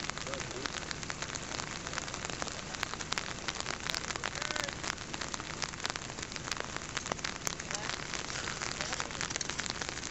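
Steady, dense patter of rain falling close to the microphone, with a few faint whistled notes that rise and fall.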